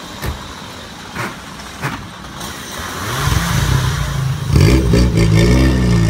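A few short knocks, then an engine that starts running about three seconds in and revs up and down, getting louder about four and a half seconds in.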